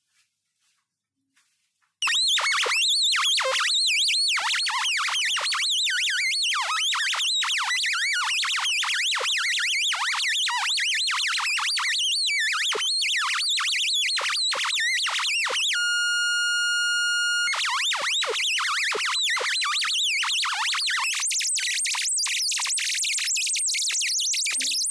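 Synthesized electronic chirping from a joke alarm-clock web app. It starts abruptly about two seconds in as a loud, dense stream of rapid sine-tone chirps sweeping up and down in pitch. Around two-thirds through it breaks for a steady beep held about a second and a half, then the chirps resume.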